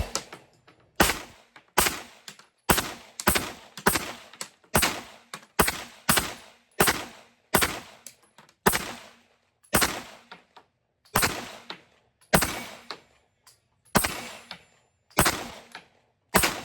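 Glock 19X MOS 9mm pistol firing a full magazine: about twenty sharp shots, fast strings of close shots early on giving way to slower, more spaced shots near the end.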